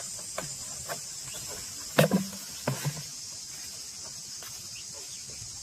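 Steady high-pitched insect chirring, with a few sharp knocks and taps over it: the loudest about two seconds in, and two more close together just before three seconds.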